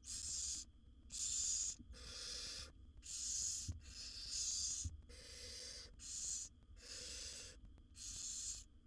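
Barn owl nestlings giving rasping, hiss-like begging calls, the 'snoring' food call. Each call lasts about half a second and they come one after another, roughly one to one and a half a second, several chicks overlapping.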